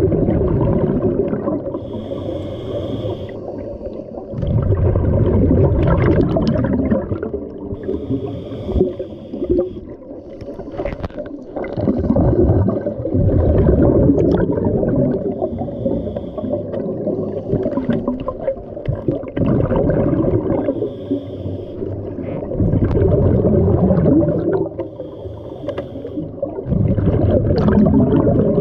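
Scuba diver breathing through a regulator underwater. Each breath in gives a short high hiss, and each breath out gives a longer, louder rumble of bubbles, about one breath every five or six seconds.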